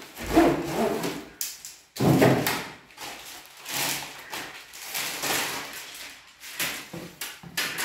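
Cardboard box and plastic wrapping rustling and scraping in several bursts as ceiling fan blades are slid out of their box and unwrapped.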